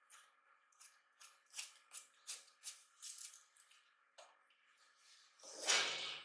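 Crinkling and rustling of small packaging and parts being handled on a desk: a run of short, quick rustles, then one louder, fuller rustle near the end.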